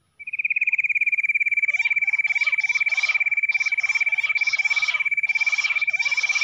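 Bush quail calls played back as a trapping lure: a loud, fast trill at one steady pitch starts suddenly, and after about a second and a half a busy chorus of chirping, sweeping calls joins it.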